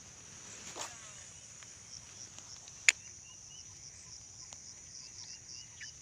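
Steady high-pitched chirring of insects, with one sharp click about three seconds in and a few fainter clicks and short chirps.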